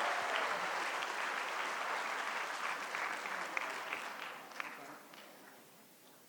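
Audience applauding, a dense crowd of claps that thins out and dies away about five seconds in.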